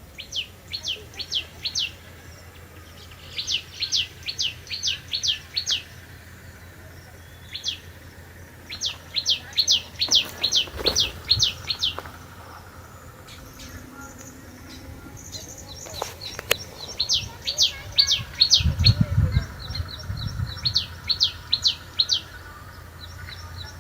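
Baya weaver birds chirping in repeated runs of short, sharp notes, each sliding down in pitch, about four a second, with pauses between the runs. A brief low rumble comes about three-quarters of the way through.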